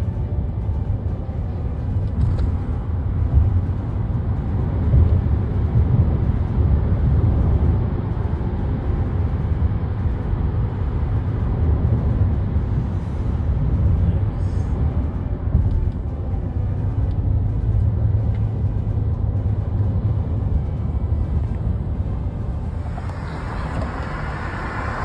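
Road noise inside a moving car at highway speed: a steady, deep rumble of tyres and engine. Near the end it gives way to a brighter rushing noise.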